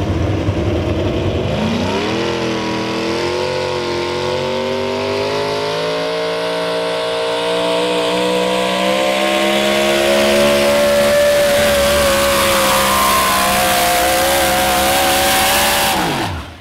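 Modified 4x4 pulling truck's engine making a full pull. It revs up sharply about two seconds in, then runs flat out at high revs, slowly climbing as it drags the sled, and near the end it is cut off, the pitch falling away quickly.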